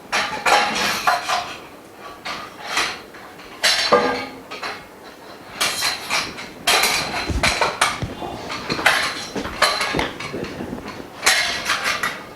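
Frame bars and fittings of a dust-free room frame being handled and fitted together: irregular metallic clinks, clatters and knocks, a few every second or so.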